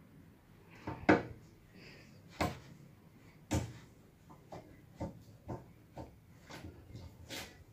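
Slime being squeezed and poked by hand, giving a series of sharp pops and clicks: three louder ones about a second apart, then quicker, softer ones.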